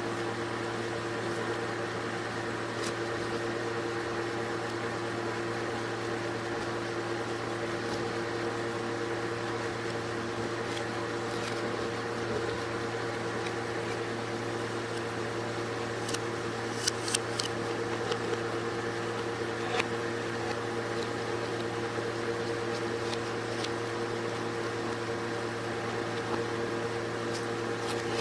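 Cold plate ice-cream (ice pan) machine humming steadily, its compressor and fan running, with a few sharp metal taps of a scraper on the plate about two-thirds of the way through.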